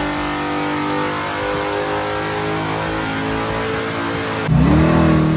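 Naturally aspirated 565 cubic-inch big-block Chevrolet V8 revved and held at steady high rpm. About four and a half seconds in it turns louder and revs up again.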